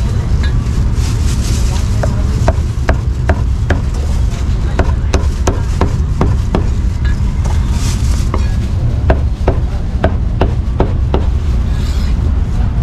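Cleaver chopping cooked meat on a round wooden chopping block: a steady run of sharp chops, about two to three a second, with a short pause midway. Under it runs a constant low rumble.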